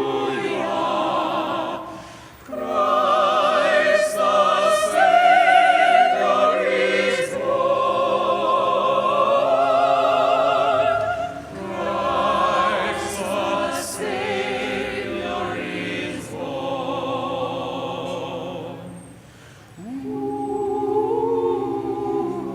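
Mixed choir of adult voices singing a Christmas carol in long held notes with vibrato. The singing breaks off briefly about two seconds in and again near the end.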